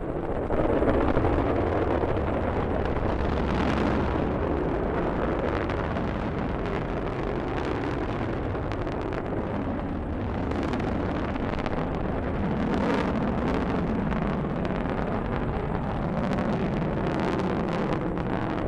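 Rocket engines at liftoff: a steady, deep roar with scattered crackle. It steps up in level about half a second in.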